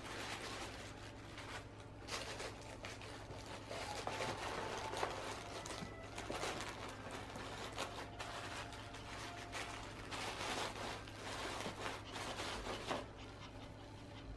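Tissue paper crinkling and rustling, with items scraping in a cardboard box as it is packed by hand, coming and going in irregular spells over a low steady hum.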